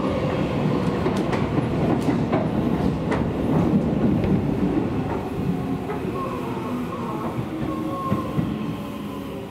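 Seibu Railway electric train running on the rails, with sharp clicks of the wheels over rail joints in the first half. In the second half a thin whine drifts slightly lower as the running noise eases.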